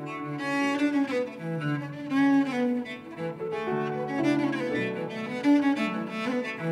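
Bowed cello playing a melody, its notes changing every fraction of a second with some held longer.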